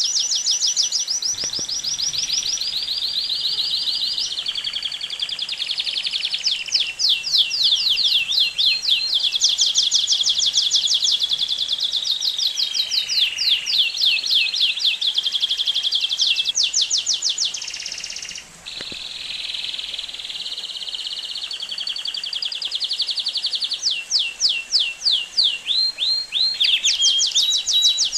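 Domestic canary singing a long, continuous song of fast high trills and rolls, each run of rapidly repeated notes giving way to a new one every second or two, with a brief pause about two-thirds of the way through.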